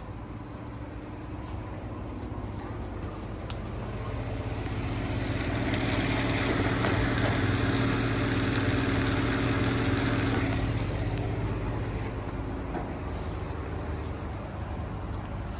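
Heavy truck on the road: a steady low engine drone with road and wind noise that swells to its loudest in the middle, then eases off.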